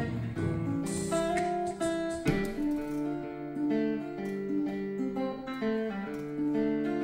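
Solo acoustic guitar playing an instrumental passage: picked notes and chords ringing over one another, with one hard strum about two seconds in.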